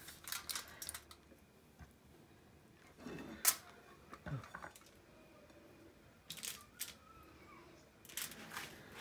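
Light handling noises of food being plated on a foil-lined tray: a metal spoon scraping and tapping through rice near the start, then scattered clicks and rustles as kebabs are set down on the rice, the sharpest click about three and a half seconds in.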